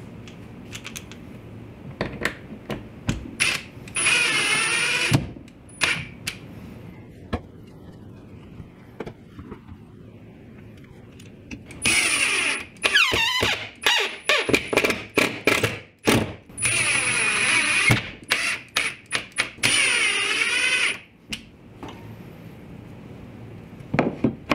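Cordless drill/driver running in several short bursts, its whine rising and falling in pitch, as it drives screws to fix a wooden tool rack to the wall. One burst comes about four seconds in, then a cluster from about twelve to twenty-one seconds. Clicks and knocks of handling come in between, and near the end there are metallic clicks as a combination square is set on the rack.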